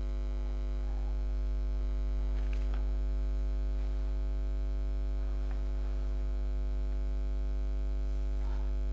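Steady electrical mains hum: a constant low buzz with a stack of even overtones, unchanging throughout.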